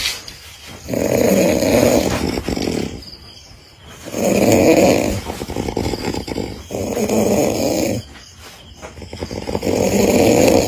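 Very loud open-mouth snoring: a run of long snores, each lasting a second or more, with short quieter gaps for breath between them.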